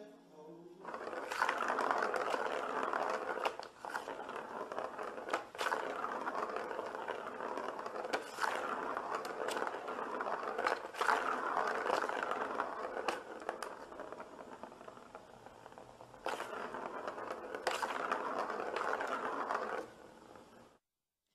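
Plastic ball rolling round and round the plastic track of a circular cat scratcher toy as a cat bats it, a continuous rolling rattle with occasional sharp clicks.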